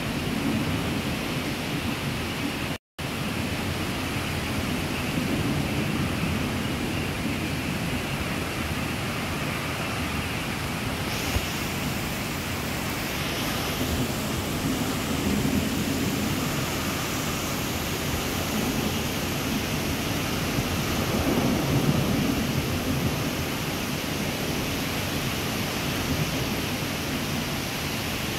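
Thunderstorm downpour: a steady hiss of heavy rain that grows brighter about eleven seconds in, with low rumbles of thunder swelling in the background, the loudest about twenty-two seconds in. The sound cuts out for an instant about three seconds in.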